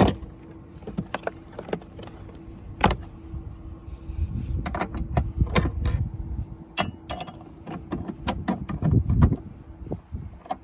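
Repeated clicks and knocks of the spare wheel's hold-down screw being turned by hand in a car's trunk floor, over low rumbling handling noise.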